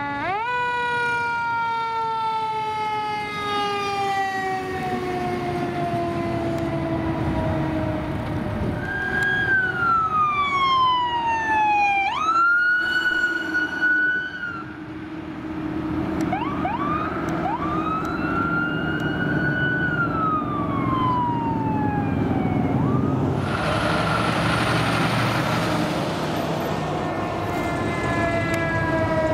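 Fire trucks responding with sirens over the sound of their diesel engines. A siren jumps up in pitch and then winds down slowly. Sirens then wail down and up several times, there is a short burst of harsh noise a little past the middle, and another siren falls slowly near the end.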